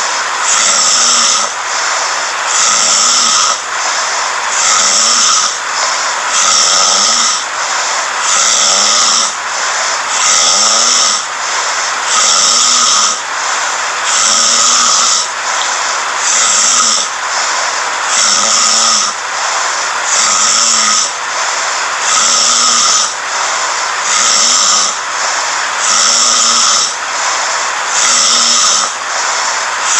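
A sleeping person snoring in a steady rhythm, one snore about every two seconds with a brief dip between them.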